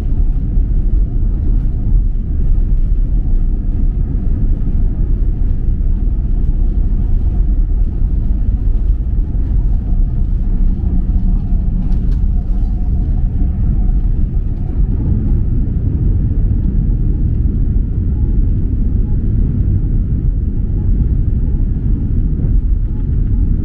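Jet airliner taking off, heard from inside the cabin: a steady, loud, low rumble of the engines at takeoff thrust and the wheels on the runway.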